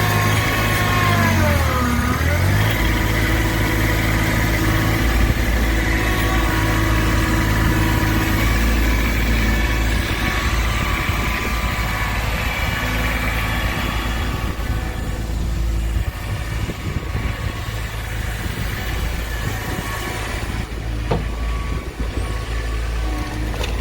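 Kubota B7500 compact tractor's three-cylinder diesel running under load as its loader scoops and carries dirt. Its pitch dips and recovers about two seconds in, and it runs softer in the second half, with a few sharp knocks near the end.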